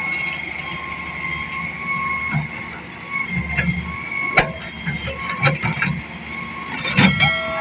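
Excavator running, its engine rumbling under a steady high whine, with a few sharp knocks about four, five and a half and seven seconds in.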